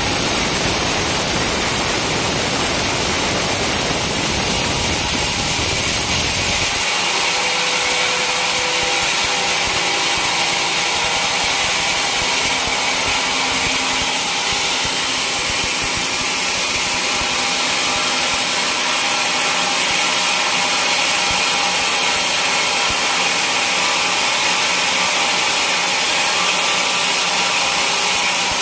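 A sawmill saw running through a teak log, a steady loud sawing noise. About seven seconds in, the deep rumble drops away and a high hiss carries on.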